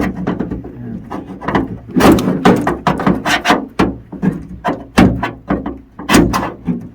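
A small pry bar knocking and scraping against the sheet metal of a 2008 Chevy Impala's trunk lid as it is worked into place behind a dent: a run of irregular clunks and taps.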